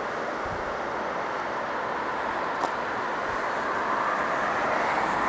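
Steady rushing background noise of the outdoors, like distant traffic, with one faint click partway through.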